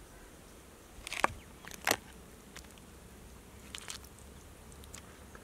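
Crab shells cracking and crunching as crab curry is eaten: two sharp cracks about one and two seconds in, then a few fainter clicks.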